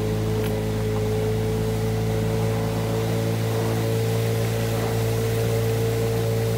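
Boat's outboard motor running steadily at an even pitch, driving the boat along at constant speed.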